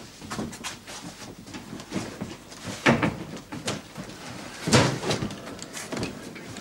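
Scuffing and light knocking of someone moving about in the dark, with two louder scraping knocks about three and five seconds in.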